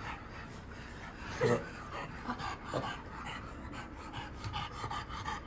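French bulldog panting steadily, with one short, louder sound about one and a half seconds in.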